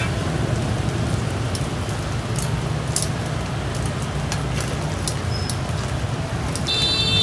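Steady rushing of a gas burner and sizzling of oil in a wok frying chicken skin, with scattered light clicks of metal utensils and scissors. A short, high ringing metallic tone sounds near the end.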